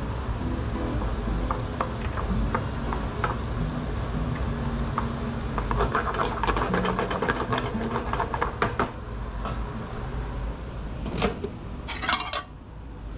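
An egg, chopped garlic and eringi mushroom sizzling in butter and olive oil in a frying pan, while a wooden spatula scrapes and taps the pan as it stirs, busiest from about six to nine seconds in. Near the end come a few sharp knocks and rattles.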